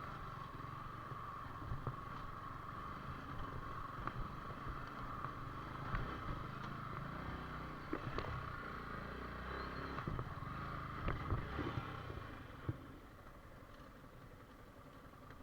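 Yamaha R15 V4's 155 cc single-cylinder engine running steadily as the motorcycle rides over a rough, rocky trail, with scattered sharp knocks and clatter throughout. The sound drops noticeably about twelve and a half seconds in.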